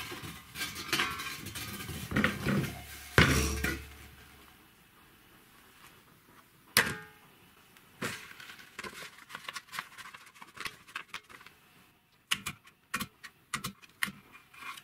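A metal tank rolled and knocked about on a wooden workbench, with a heavy thud about three seconds in as it is set down. After a single sharp knock, a run of light clicks and taps follows as paper is pressed and smoothed onto the tank's end with gloved hands.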